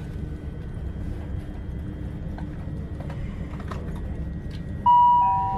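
Cabin rumble of a class 387 electric multiple unit running along the track, with a few faint clicks. About five seconds in, a loud two-note passenger-information chime sounds, a higher note then a lower one, signalling an onboard announcement.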